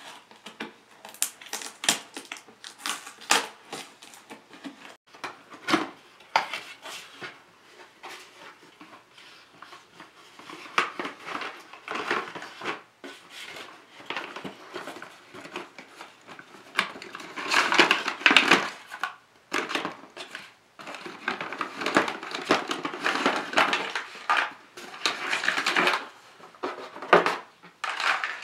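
A cardboard box being opened and its hollow plastic track pieces lifted out. Irregular clicks and clatters of the plastic parts knocking together, with longer stretches of cardboard scraping and rustling.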